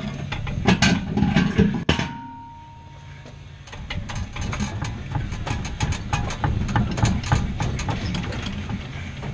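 Irregular metallic clicks and knocks from hands working on the underside of a car's drivetrain, over a low steady engine-like rumble. It drops quieter for a moment about two seconds in.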